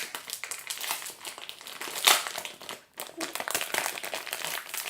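Packaging of a glue bottle crinkling and crackling as it is pulled and picked at by hand to get it open, with a louder crackle about two seconds in.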